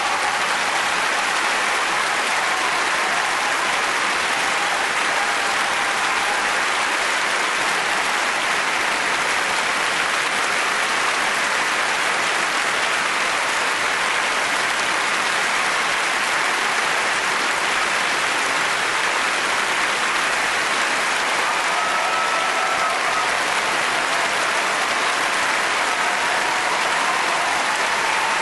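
Audience applauding steadily and without a break.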